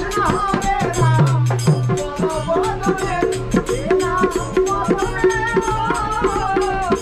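A man singing a folk song to a double-headed hand drum beaten in a steady rhythm, with jingling hand percussion.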